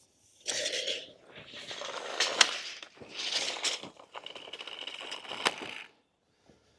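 Wooden boards scraping and rubbing as they are shifted into place, in several rough stretches with a few sharp knocks.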